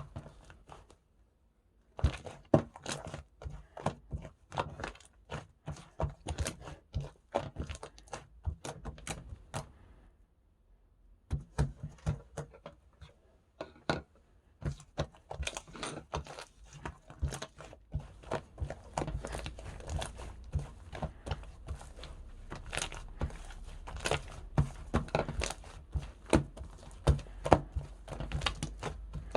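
Slime being squished and pressed by hand, giving fast irregular runs of sharp clicky pops and crackles. The clicking stops briefly about half a second in and again around ten seconds in.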